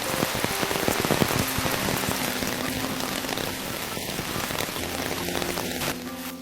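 Heavy rain falling and pattering on surfaces, with many close, sharp drop hits; it cuts off abruptly about six seconds in.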